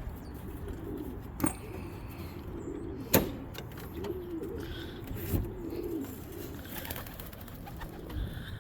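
Domestic pigeons cooing in low, wavering calls, with a few sharp knocks, the loudest about three seconds in.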